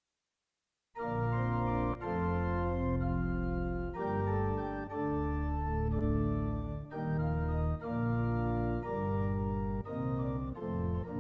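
Organ starts about a second in and plays a hymn in sustained chords over a bass line, the chords changing about once a second.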